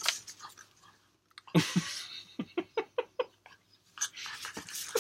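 A man laughing under his breath: a sudden burst of breath, then a quick run of short chuckles, about five a second, dying away.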